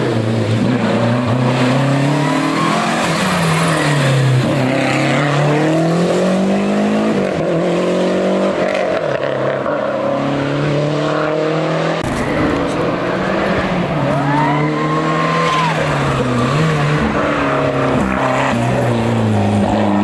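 Historic rally cars driven hard on a closed stage, one after the other: engines revving up and dropping back repeatedly through gear changes as each car approaches, with a short high squeal a little past halfway.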